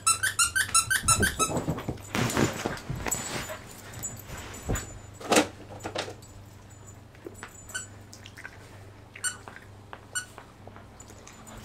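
Husky puppy at play: a quick run of high squeaks in the first second or so, then scuffling and a sharp thump about five seconds in, with faint clicks after.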